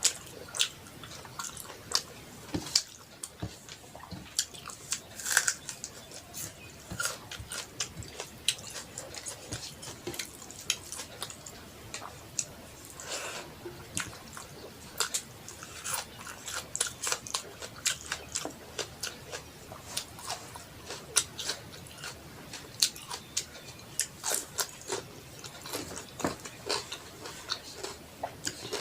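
Close-miked eating: chewing and biting through a meal of rice and curries, with many irregular, sharp, wet mouth clicks.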